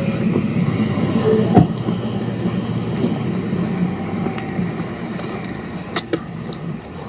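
Steady low rumble like a running vehicle, with a sharp knock about a second and a half in and another near six seconds.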